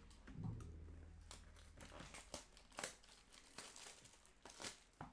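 Faint crinkling and tearing of the plastic shrink wrap on a sealed trading card box, with irregular sharp crackles and light clicks as it is handled and opened.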